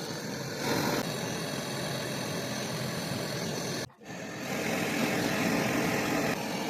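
Steady machine hum of an electric motor running during refrigerator gas-charging work, broken off abruptly about four seconds in, then resuming a little louder.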